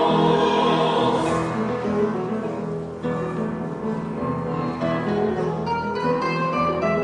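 Mixed choir singing with acoustic instruments. The choir's held chord fades about three seconds in, and plucked strings, guitar among them, carry the music on.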